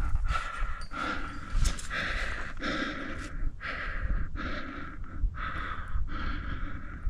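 A rock climber's heavy, rapid breathing close to the microphone, about nine breaths in seven seconds, the hard panting of effort on the climb, over a low rumble on the mic.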